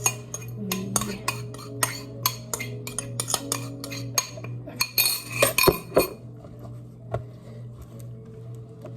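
A spoon clinking and scraping against a bowl as chopped vegetables are stirred, a quick run of clinks for about five seconds, then a louder rattle before it settles to a few quiet taps.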